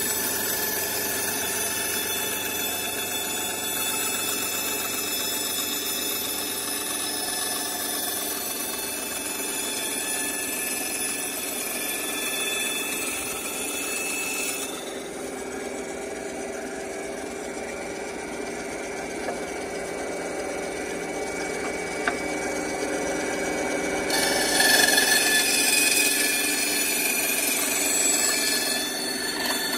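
Ryobi TBS-80 benchtop band saw running with a steady whine, its blade cutting through wooden boards. The cutting gets louder about 25 seconds in.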